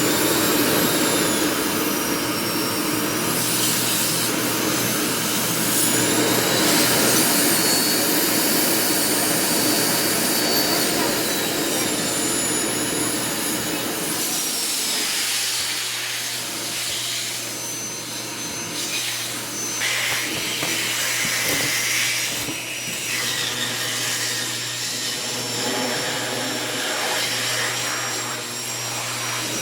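Vacuum cleaner running continuously, with a high whine that slides up and down in pitch as it works the floor; the sound thins somewhat about halfway through.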